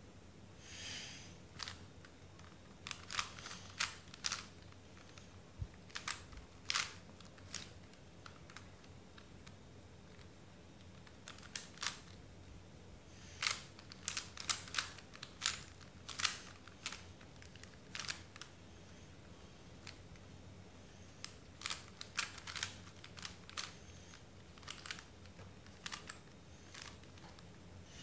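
Plastic 3x3 Rubik's cube clicking as its layers are turned by hand, in irregular clusters of quick clicks with short pauses between. There is a short breath about a second in.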